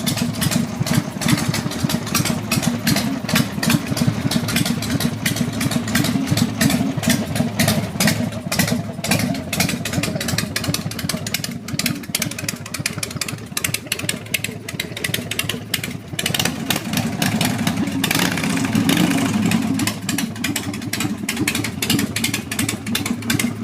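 An engine running steadily for a sound test, easing off a little midway and picking up again about eighteen seconds in.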